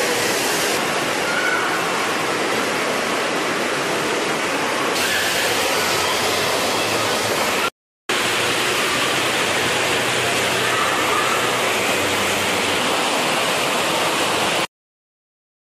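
Loud, steady rush of churning water-park pool water, close to the phone's microphone. It cuts out briefly about eight seconds in, then resumes, and stops before the end.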